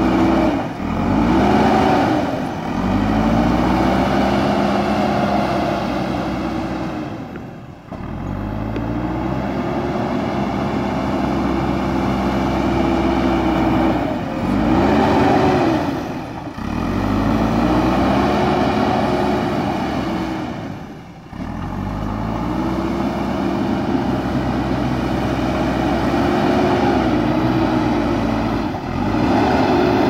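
JCB backhoe loader's diesel engine running hard, its pitch rising, holding and then dropping again every several seconds as the front loader arm and bucket are worked.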